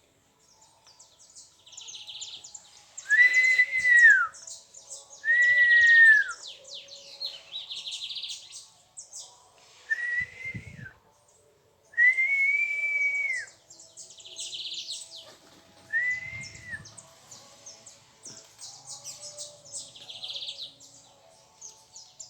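Wild birds calling: a clear whistled call that rises then falls, about a second long, repeated five times, over a chorus of quick high chirps and twitters from smaller birds.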